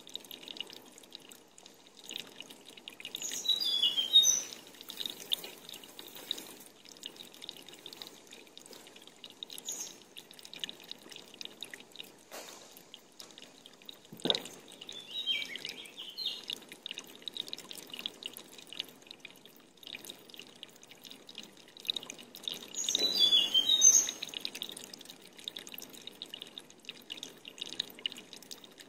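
Water dripping, many small drip ticks over a faint wash of water sound. Twice, a few seconds in and again past the middle, comes a louder spell of pouring and splashing water, and a single knock sounds near the middle.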